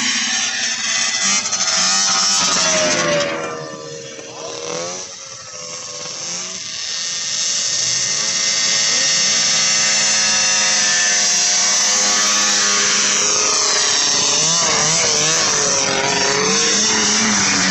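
Vintage two-stroke snowmobile engines running at full throttle in a drag race. A few seconds in, the sleds fade away with falling pitch; from about 7 s in, another run builds loud as sleds come down the strip toward and past the listener, engine pitch wavering up and down near the end.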